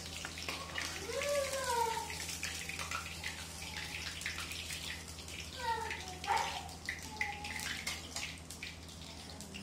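Hot oil sizzling in a frying pan while a metal spatula clicks and scrapes against the pan and a steel plate, moving fried rohu fish pieces across. A voice makes a couple of short gliding sounds, about a second in and again near the middle.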